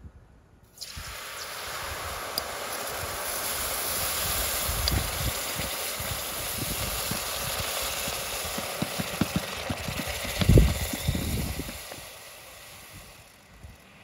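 Hot aluminum ingot quenched in a bucket of water: a loud, steady hiss and sizzle of boiling water and steam that starts about a second in and fades away near the end. Low thumps run under it, with a louder one about ten seconds in.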